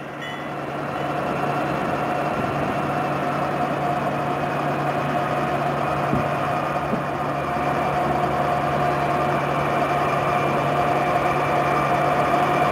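Diesel locomotives of an approaching BNSF freight train, a steady engine drone that swells in the first couple of seconds and then grows gradually louder as the train nears.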